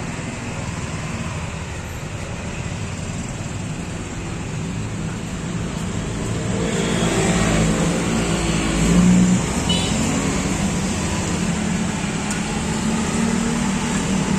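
Road traffic: a steady motor-vehicle rumble that swells as a vehicle passes close by, loudest about seven to nine seconds in.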